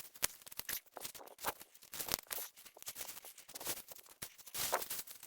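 Dry leaves and cut brush rustling and crackling in an irregular run of snaps and crinkles.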